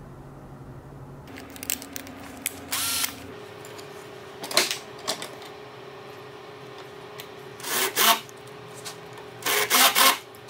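Cordless drill spinning a countersink bit into the pre-drilled hole of a small walnut block held in a bench vise, in several short bursts, the longest near the end, with a few handling clicks near the start.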